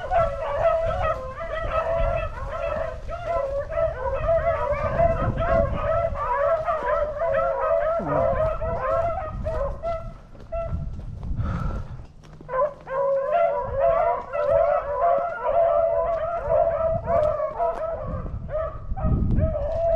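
A pack of beagles baying on a swamp rabbit's track: many overlapping hound voices in full cry, breaking off briefly about ten seconds in and then resuming.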